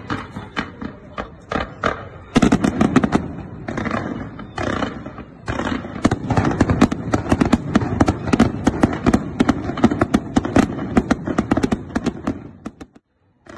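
Fireworks display: a dense, rapid crackle of many small bursts and bangs, growing thicker about two seconds in and again about six seconds in, then breaking off briefly near the end.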